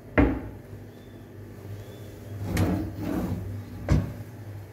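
Kitchen cabinet being shut and handled: a sharp knock just after the start, a rattling clatter about two and a half seconds in, and another sharp knock near the end.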